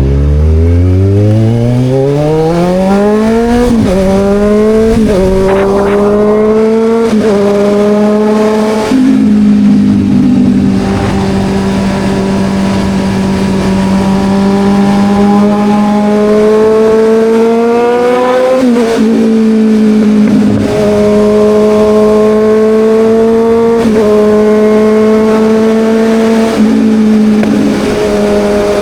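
Kawasaki Ninja 1000's inline-four engine under hard acceleration. It revs up quickly through the gears, with a quick upshift at about 4, 5, 7 and 9 seconds. It then holds a steady cruise, pulls up again to another shift near the middle, and cruises on with a few small changes in revs.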